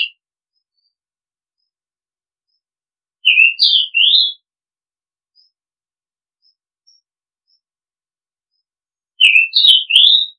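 Oriental magpie-robin singing in short phrases of three or four sweet whistled notes that bend up and down in pitch. The phrases are separated by pauses of several seconds.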